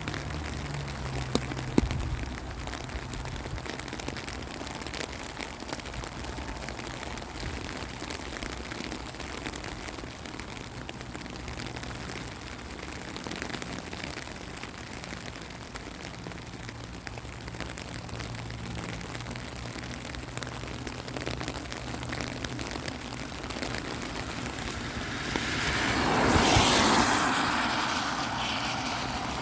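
Steady hiss of rain with a low engine hum beneath it. Near the end a vehicle passes, swelling up and fading away.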